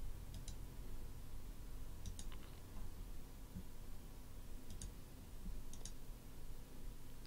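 Computer mouse button clicking: four quick double clicks, each a press and release, spread over several seconds, over a steady low electrical hum.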